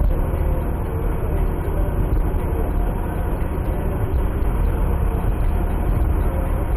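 Steady cabin noise of a car driving along at speed: an even low rumble of tyres and engine heard from inside the car.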